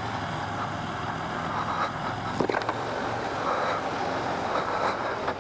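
KTM 790 Adventure R's parallel-twin engine running at a steady pace under way, mixed with a steady rush of wind and road noise. A couple of short knocks sound about two and a half seconds in.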